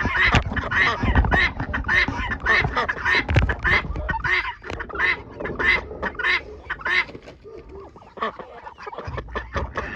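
Farmyard ducks quacking in a busy, overlapping chorus of short calls, about two to three a second. The calls thin out after about seven seconds.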